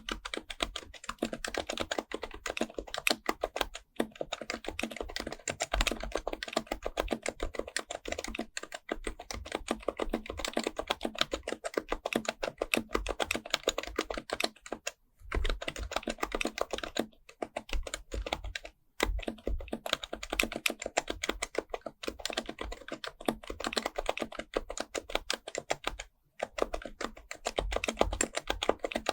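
Typing on a Happy Hacking Keyboard Professional Type-S with its silenced Topre switches. Fast, continuous keystrokes are broken by short pauses of under a second every few seconds.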